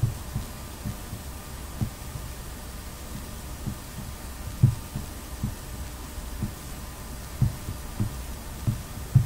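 Soft, low thumps at irregular intervals, about a dozen, over a steady low hum; the loudest come about halfway through and near the end.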